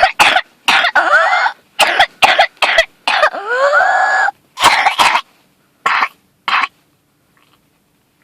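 A 7-year-old child's whooping cough (pertussis) fit: a rapid run of harsh coughs broken by high-pitched, rising whooping breaths drawn in, then two single coughs about six seconds in.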